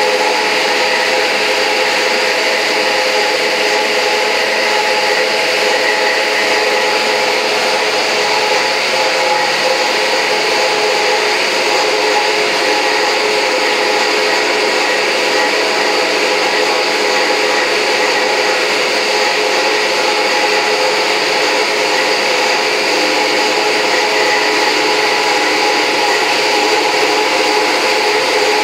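Beeswax foundation sheet machine running steadily: an unbroken motor whine with several constant tones over a hiss.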